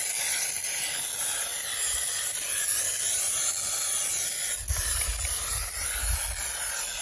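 Hand-pump pressure sprayer misting diesel onto a motorcycle's cylinder fins, a steady hiss. A low rumble joins in about five seconds in.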